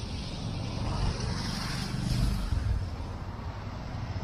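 Diesel engine of a double-decker intercity coach running as the coach drives slowly toward the listener, swelling about two seconds in, with a brief hiss at the same time.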